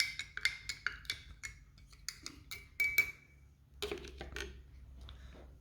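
A spoon stirring crushed chalk in a glass of water, clinking irregularly against the glass, with some strikes leaving a short ringing note.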